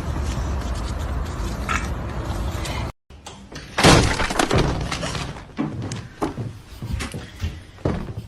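A steady noisy rumble cuts off abruptly. About a second later something smashes with a sudden loud crash, like breaking glass, followed by several smaller clatters.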